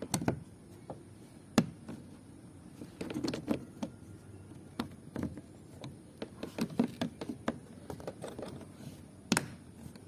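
Irregular knocks, taps and clicks of hands working on a car door and its trim, the sharpest about a second and a half in and near the end.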